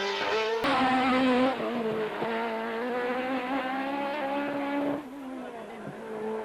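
Race car engine at high revs, its pitch climbing and dropping through gear changes, with abrupt jumps in the sound where the footage is cut. It becomes quieter about five seconds in.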